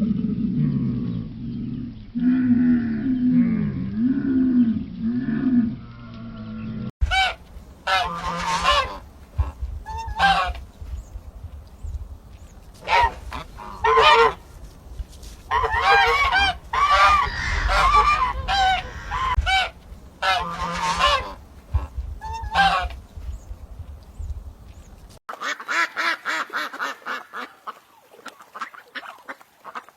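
Waterfowl honking: loud nasal calls repeated in irregular groups through most of the stretch. Before the honking, a few seconds of a deep, low call that bends in pitch. Near the end, a quicker run of shorter calls.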